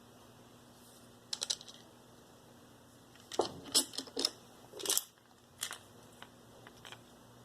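Light clicks and clinks of old engine timing parts being picked up and handled on a workbench: a short cluster about a second in and a busier run of clicks between three and five seconds in, over a faint steady hum.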